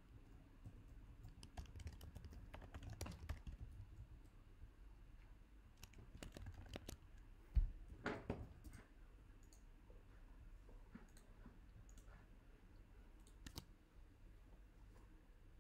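Faint computer keyboard typing and clicking, in scattered short clicks. A single dull thump about halfway through is the loudest sound.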